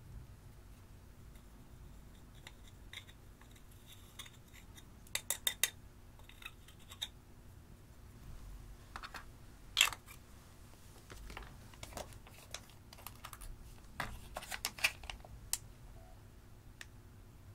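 Scattered light clicks and taps from handling black plastic eyeshadow compacts and knocking crumbled pressed eyeshadow out into a glass dish. A quick run of several taps comes about five seconds in, and one sharper knock about halfway through.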